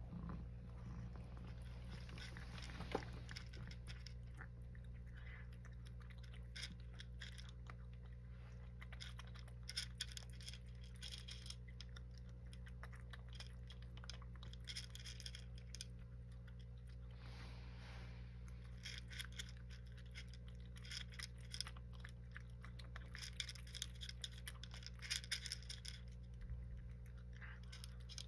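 A cat crunching dry kibble in clusters of short, crisp crunches with pauses between, over a steady low hum.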